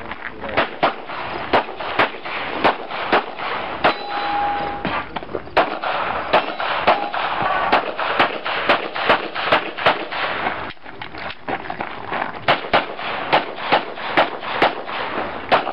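Pistol shots fired in quick strings at a USPSA stage, a few tenths of a second apart, with a pause of about a second and a half after the middle as the shooter moves.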